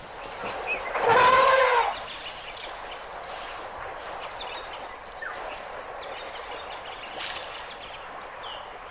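Outdoor background noise with a few short bird chirps, and a louder, wavering pitched call lasting about a second, about a second in.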